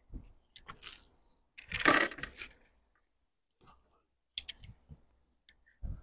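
Small metallic clicks and clinks of .22 rimfire cartridges being handled and loaded, scattered and irregular, with a short louder scraping sound about two seconds in.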